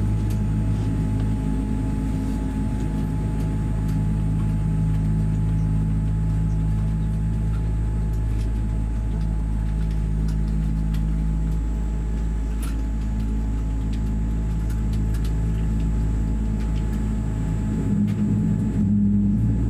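Steady low hum inside a Boeing 787-8 airliner's cabin during pushback, with several steady droning tones from the aircraft's systems. Near the end the hum shifts and the higher hiss briefly drops away.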